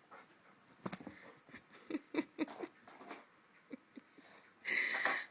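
A dog's short snuffling breaths in quick soft puffs, then a louder, hissy burst of breath lasting about half a second near the end.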